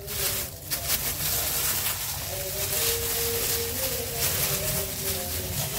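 Thin plastic food-handling gloves rustling and crinkling as hands press and flatten soft mochi dough, with faint held tones underneath.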